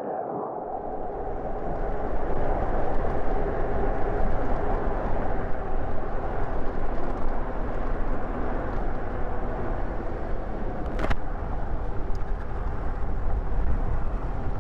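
Wind rush on a chest-mounted microphone and street traffic noise during an e-bike ride, a steady low rumble that builds over the first couple of seconds. A single sharp click about eleven seconds in.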